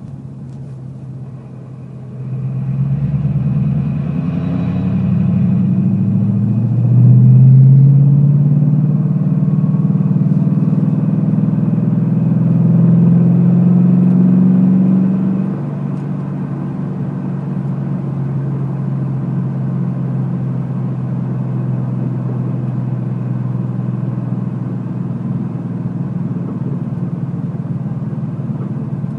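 Ford car engine running with a noise that has appeared since a clutch replacement. It is revved up and down from a couple of seconds in, then settles to a steady idle about halfway through.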